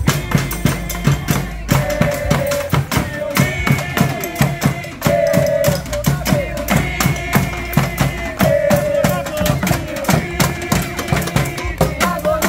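Background music with a steady drum beat and a held melody line over it.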